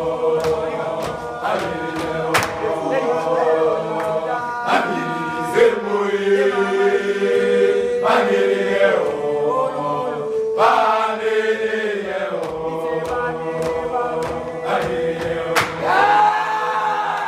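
A group of boys' voices singing a gwijo, a South African a cappella chant, in harmony with long held notes and slow swoops in pitch, punctuated now and then by sharp percussive hits.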